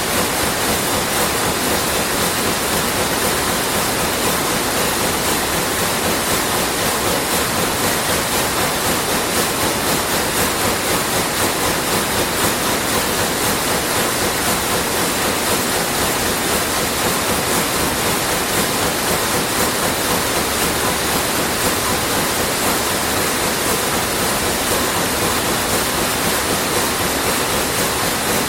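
Sulzer weaving looms running: a steady, dense mechanical clatter with a fast, even beat from the repeating weaving cycle.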